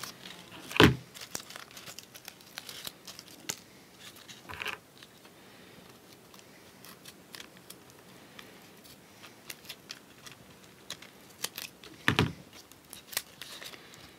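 Folded paper of an origami heron crinkling and creasing in many small crackles as it is pinched and shaped with multi-tool pliers, with a louder rustle about a second in and another near the end.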